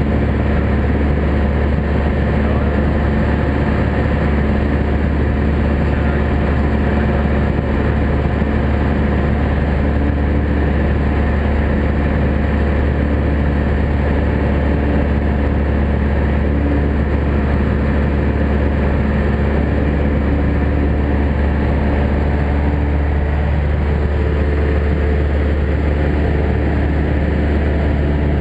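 Cessna 172 light aircraft in flight: its piston engine and propeller drone steadily with a strong low hum, with no change in pitch or level.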